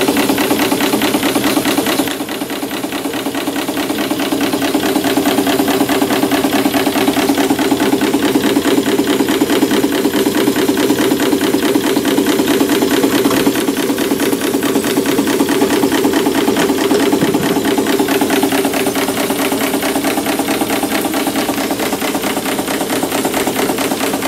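Märklin 4159 live-steam model stationary engine running steadily under steam, a fast even mechanical beat from its cylinders and motion, while it drives a dynamo by belt.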